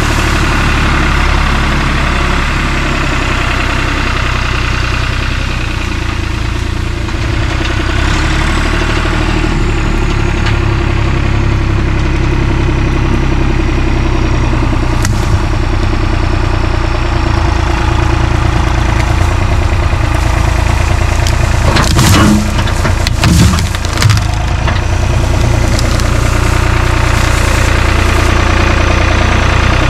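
Farm tractor engine running steadily as its front loader works a pile of cut tree branches. About three-quarters of the way through there is a short burst of loud cracks and crunches as the brush snaps and scrapes in the loader bucket.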